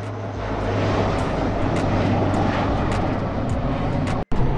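Kawasaki P-1's four turbofan engines heard in flight: a steady jet noise over a low hum, cutting out for an instant near the end.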